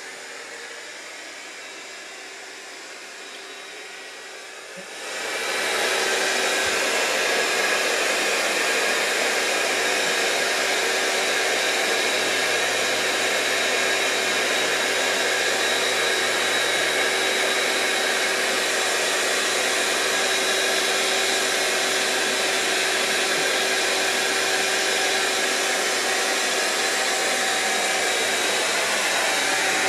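Electric air pump of a sofa-sleeper air mattress running steadily, blowing air into the mattress to inflate it. It gets much louder about five seconds in, then holds a steady whirring hum.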